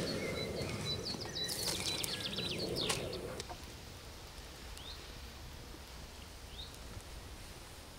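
Wild birds singing: a quick high trill in the first three seconds, then two short rising chirps. Under them runs a steady outdoor background noise that drops a little after about three and a half seconds.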